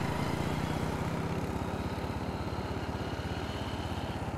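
Small motorcycle engine running with a rapid, even beat as the bike rides away, growing slowly fainter.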